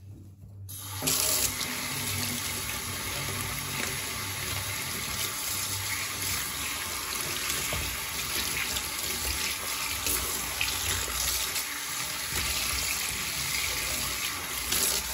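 Kitchen tap turning on about a second in and running steadily into a foam-covered stainless-steel sink, the stream splashing over a hand and sponge being rinsed beneath it while the cleanser foam is washed off.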